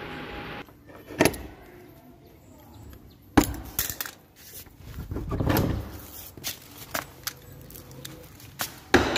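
Clacks and metallic clinks of a barrel bolt and padlock being undone on a wooden door, the loudest a sharp knock about three and a half seconds in, followed by lighter clicks and scuffs.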